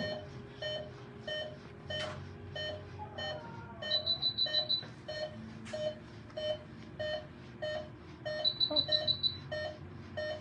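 Veterinary patient monitor beeping steadily with the sedated wolf's pulse, about two beeps a second, with a burst of quick, higher-pitched alarm beeps about every four to five seconds. Two single clicks sound about two and six seconds in.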